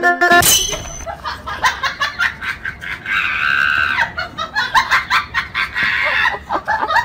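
Person laughing off camera in short, quick, high-pitched bursts, with a longer squeal about three seconds in.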